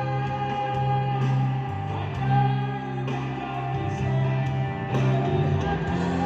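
Live band music with a singer, sustained sung notes over steady accompaniment, sounding through a loudspeaker system.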